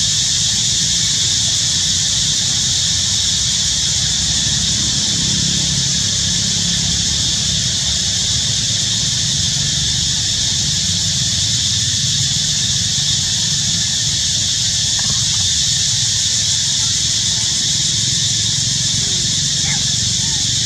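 A steady, high-pitched drone of insects, unchanging throughout, over a low steady rumble.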